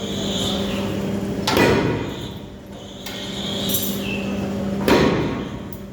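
Forging hammer striking twice, about three and a half seconds apart, over a steady machine hum.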